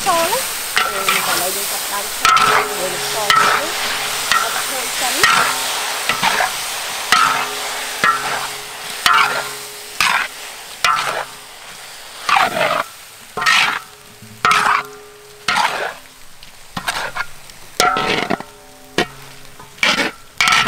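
Snails in their shells tipped into a hot wok of sizzling paste, then stir-fried with a metal spatula. The sizzle is loud at first and fades, and the spatula scrapes against the wok about once a second, the wok ringing after each stroke.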